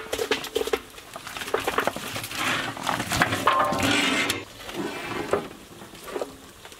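Raw chicken pieces tumbling from a large bowl into a big steel cooking pot: a dense run of wet thuds, slaps and sliding, busiest in the middle and thinning out near the end.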